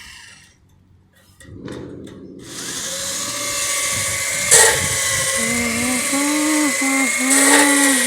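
Power tool running: after a brief quiet spell it starts up about two and a half seconds in. From about halfway its whine dips and rises in pitch again and again, as if loaded and unloaded.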